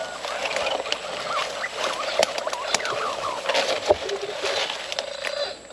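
Wild birds calling in short chirps and whistles over a steady background hiss of forest ambience, with a single sharp knock about four seconds in.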